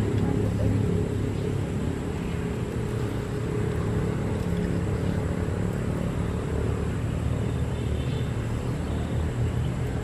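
An engine running steadily, a continuous low hum.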